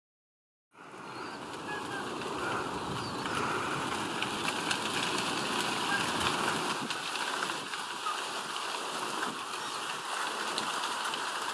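Eurasian coot chicks giving faint, short, high cheeps over a steady rushing outdoor hiss, starting about a second in.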